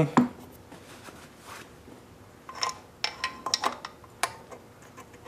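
Small metallic clicks and taps, a quick cluster of them from about two and a half to four and a half seconds in, as a Briggs & Stratton piston with its rings is pushed by hand into the cylinder bore without a ring compressor.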